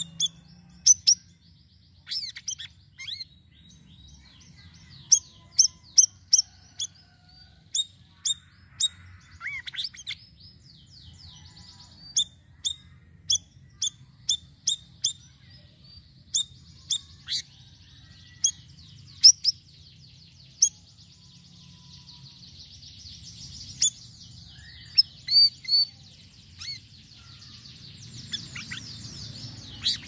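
Caged siri-siri songbird in full song: a string of short, sharp, high chirps, sometimes several close together, turning into a rapid twittering trill in the last third.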